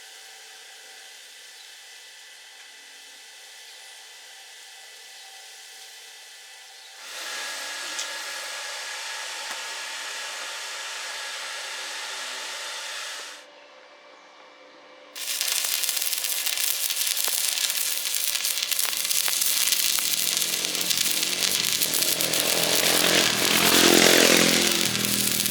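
A steady hiss that grows louder about seven seconds in and drops away about halfway through. Then, about fifteen seconds in, an electric welding arc strikes and runs with a loud, steady crackle and sizzle, loudest near the end.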